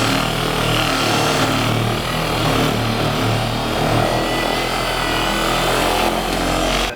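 Machine polisher running steadily, working polishing compound on a pad over the toolbox's painted steel, and stopping abruptly near the end.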